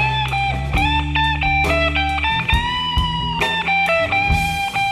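Blues-rock background music: an electric guitar plays a lead line with bent, sliding notes over a held bass and a steady drum beat.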